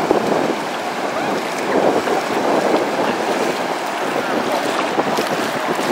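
Ocean surf washing over a shallow beach, a steady rush of breaking and receding water.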